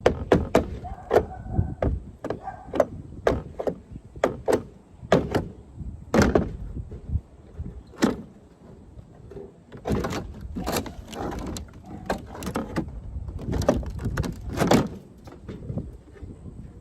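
Irregular knocks, clatters and scrapes of Decromastic roof sheeting being worked loose and handled, with a steady low rumble of wind on the microphone.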